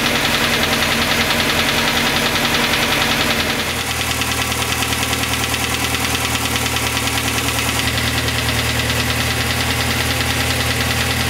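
Sunbeam Alpine Series IV's four-cylinder engine idling steadily with an even pulsing note. Its tone changes about four seconds in.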